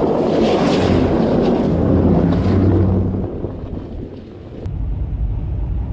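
Wind buffeting the microphone on a moving vehicle, over engine and road rumble. The wind rush fades about three seconds in, leaving a steady low engine rumble.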